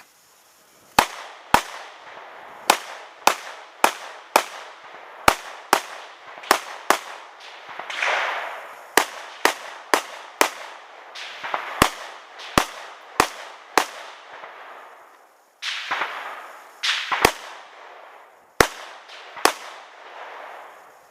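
Rifle gunfire: about two dozen sharp shots, mostly half a second to a second apart with a few short pauses, each trailing off in an echo.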